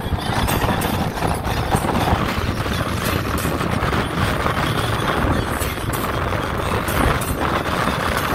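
Steady engine, road and wind noise from riding in an open Polaris Slingshot three-wheeled roadster at road speed.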